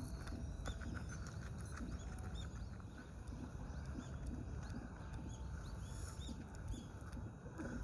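Small birds giving short, high, thin chirps, scattered and irregular, over a steady low rumble.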